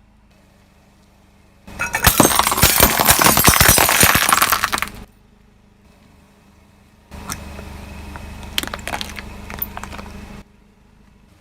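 Bulldozer at work: loud crunching and cracking of breaking material for about three seconds, then, after a pause, a low steady engine sound with scattered clicks and knocks. Both stretches start and stop abruptly.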